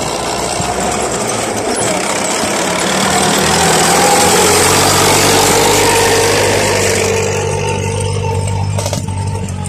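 Tracked vehicle driving close past: engine running with the noise of its tracks, growing louder as it passes and fading as it moves away.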